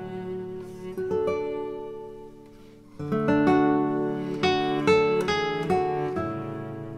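Background music: acoustic guitar playing plucked notes and chords that ring and die away.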